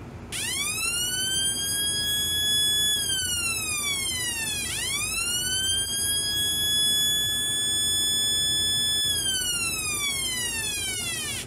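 Homemade transistor oscillator siren sounding through a bare loudspeaker: a buzzy electronic tone that rises in pitch, holds, then glides slowly back down, twice over, as its manual push button is worked, like an American-style police siren.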